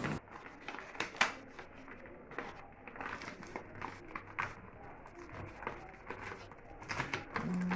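Parcel wrapping crinkling and rustling in irregular handling noises with scattered small clicks as the package is opened.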